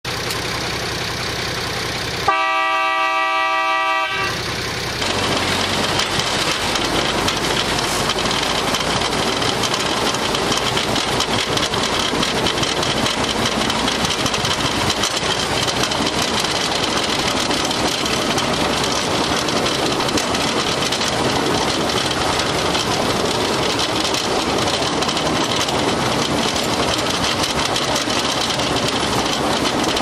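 Narrow-gauge railway motor car's horn sounds once for about two seconds, then the car's engine and running gear make a steady noise as it travels along the forest railway track.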